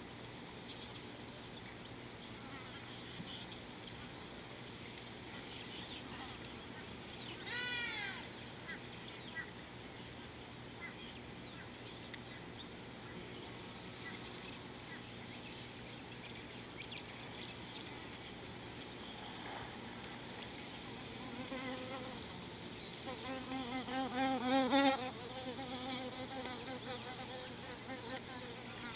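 Steady buzzing of flies and other insects. About eight seconds in comes a short run of falling pitched calls, and near the end a louder wavering, warbling animal call that builds and then stops.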